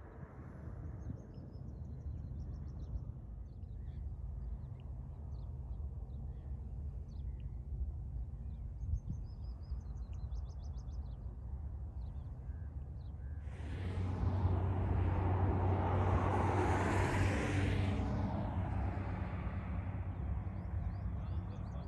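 Steady low outdoor rumble with faint bird chirps, then a vehicle passing on the road: a broad noise that swells about two-thirds of the way through, peaks and fades away over about five seconds.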